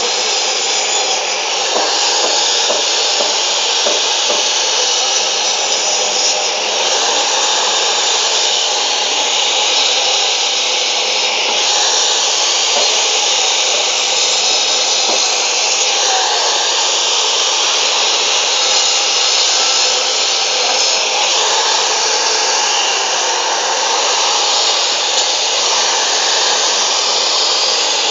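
Maktec MT243 cut-off saw, rated 2000 W and 3800 rpm and fitted with a toothed aluminium-cutting blade, running continuously while beef and bone are fed through it. It makes a steady, loud rushing noise.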